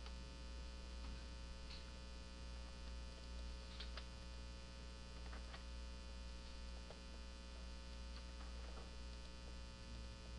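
Steady low electrical mains hum, with a few faint clicks scattered through it, in keeping with mouse clicks while columns are selected and deleted in a spreadsheet.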